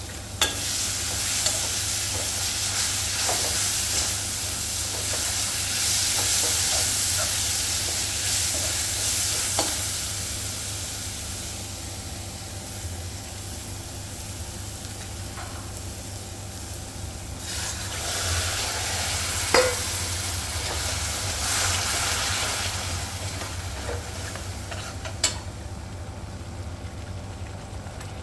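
Food frying in hot oil in a pan, sizzling as it is stirred, with a few sharp clinks of a utensil against the pan over a steady low hum. The sizzling fades after about ten seconds and swells again for a few seconds later on.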